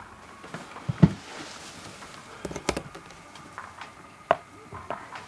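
Handling knocks of a large framed picture being lifted and set against a wall: a heavy thump about a second in, a short run of sharp knocks a little before three seconds, and one sharp knock past four seconds.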